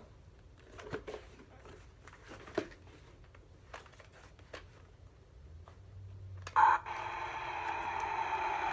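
Faint plastic handling taps on a toy clone trooper helmet. About two-thirds in, the helmet's electronic voice changer switches on with a sudden burst, then gives a steady radio-like static hiss and hum.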